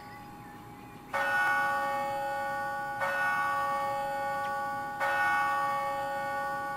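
A bell struck three times, about two seconds apart, each strike ringing on and slowly fading.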